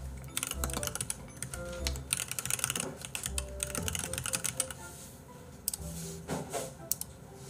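Typing on a computer keyboard: runs of quick key clicks, thickest in the first few seconds and again briefly about six seconds in, with background music underneath.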